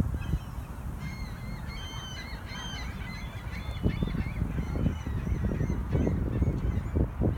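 A flock of seagulls calling: many short, high cries overlapping, crowded together from about one second in until about four and a half seconds in. Underneath is a steady low rumble with irregular thumps, which grows louder in the second half.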